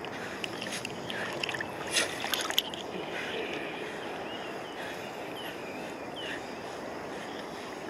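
A river swollen and muddy after a typhoon, rushing steadily. A few sharp clicks about two seconds in.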